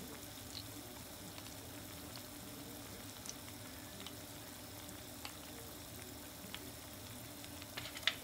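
Karaage (Japanese fried chicken) deep-frying in oil in a Daiso mess tin: a steady sizzle with small scattered pops and crackles, one sharper pop near the end.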